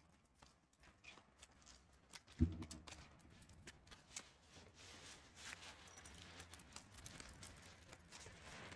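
Faint footsteps and small scattered clicks of walking, with one short low thump about two and a half seconds in.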